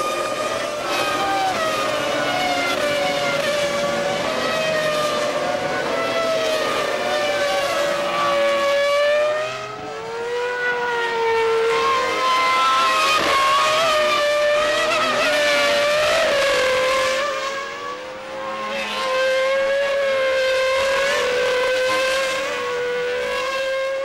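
Several Formula One cars' 3.0-litre V10 engines running at high revs on track, their overlapping pitches rising and falling through gear changes as they pass. The loudness drops briefly twice, once near the middle and once a few seconds later, then comes back.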